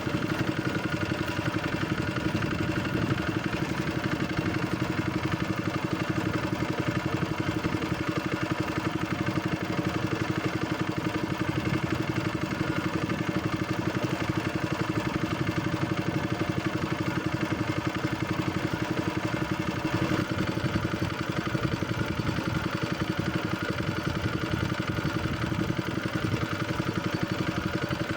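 Boat engine running steadily at an even speed, with a fast, even pulsing beat and no change in pitch.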